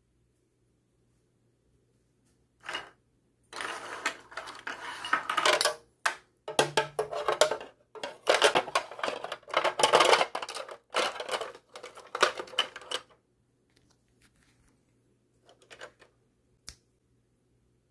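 Plastic clattering and rattling of a Nerf Vulcan EBF-25's ammo belt links being handled at the blaster's feed tray, in four or five bouts of a second or two each, then a single click near the end.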